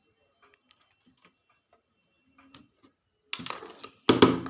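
Small, scattered clicks and light taps, then about three seconds in a couple of louder clattering, scraping bursts: small tools and parts being handled on a workbench.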